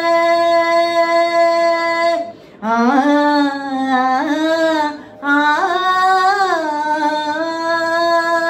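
A woman singing a Carnatic devotional song solo: a long held note, a short breath, then two phrases that slide and waver in pitch, and a second long held note near the end.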